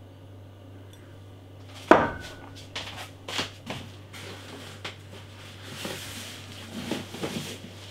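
Glass beer bottle set down on a tabletop with a sharp knock and a brief ring about two seconds in, followed by lighter knocks and handling noise as more bottles are moved, over a steady low hum.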